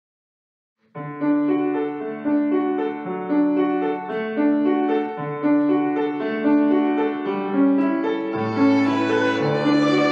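A trio of violin, tsymbaly (Belarusian hammered dulcimer) and piano begins a slow pop ballad about a second in, playing a gently pulsing accompaniment of held notes. A lower bass line enters near the end.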